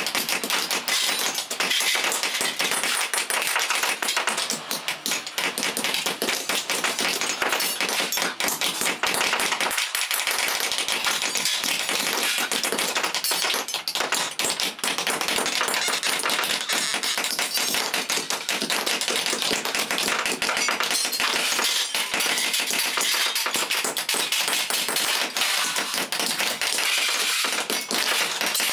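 Hand hammer blows on small iron shovel-handle parts held on a metal anvil block: rapid, continuous metallic tapping, many strikes a second.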